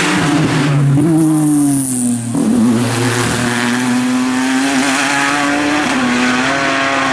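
Ford GT LM GTE race car's twin-turbo 3.5-litre EcoBoost V6 at full throttle as the car passes and pulls away. The pitch falls as it goes by, then holds and climbs slowly, with a short dip about six seconds in.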